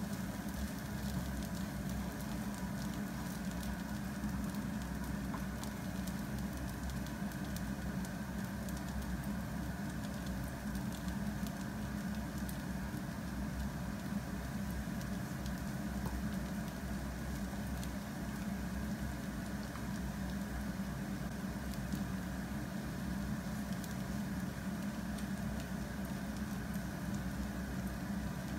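Fried rice with diced bacon and vegetables sizzling and crackling steadily in a nonstick frying pan while a wooden spatula stirs it.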